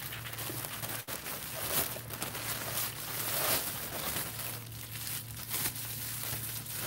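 White tissue paper rustling and crinkling as hands pull it aside in a cardboard box, with irregular small crackles; plastic bubble wrap crinkles near the end as a wrapped bottle is lifted.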